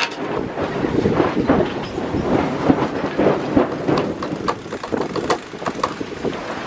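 Wind buffeting the microphone and the sea rushing past a sailboat's cockpit, with irregular clicking of a cockpit winch being cranked by hand to haul in a line while reefing the mainsail.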